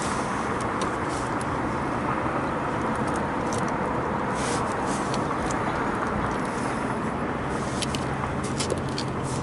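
Steady outdoor background rumble with a low hum that grows a little stronger about two-thirds of the way in, and scattered light clicks and taps throughout.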